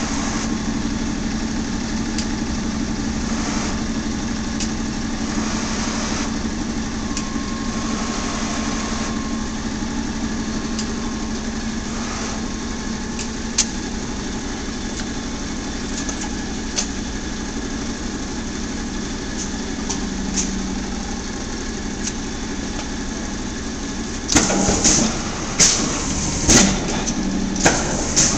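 90-ton Chicago D&K press brake running, its motor giving a steady hum. About four seconds before the end, a quick run of sharp metallic clanks and knocks starts as the machine is worked.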